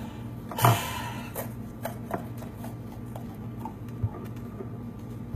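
Kitchen handling sounds: one loud knock with a short ring about half a second in, then a few lighter clicks and taps, over a steady low hum.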